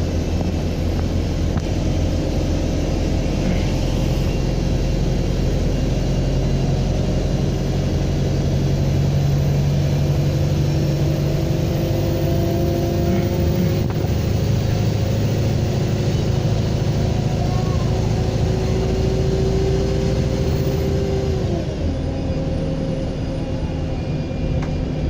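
Bus diesel engine pulling under load with a thin, high turbocharger whistle. Both the engine note and the whistle climb slowly, then drop away near the end as the driver eases off or changes gear.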